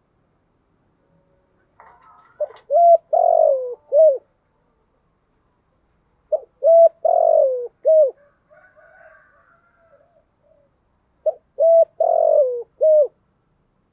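Spotted dove cooing: three phrases about four seconds apart, each of about four coos, with a longer, falling third note.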